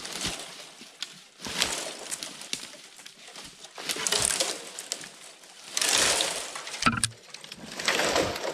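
Footsteps crunching through dry leaves, twigs and brush on a forest floor, in a few separate slow bursts with a dull thump about seven seconds in.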